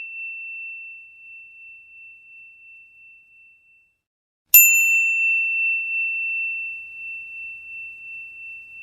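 A small high-pitched bell struck twice: the first ring fades out over the first few seconds, then a sharp second strike about four and a half seconds in rings out slowly to near the end.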